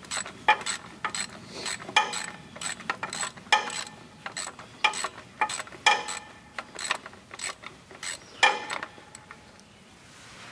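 Steel wrench clinking against a bolt as it is worked loose a little at a time on an International 240 tractor's air cleaner mounting: sharp, ringing metal clicks at an uneven pace, roughly one or two a second. The clicks stop near the end.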